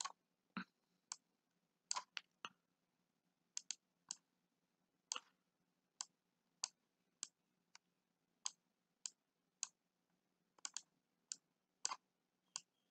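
Faint computer mouse clicks, single and in quick pairs, about one to two a second at uneven spacing, with near silence between.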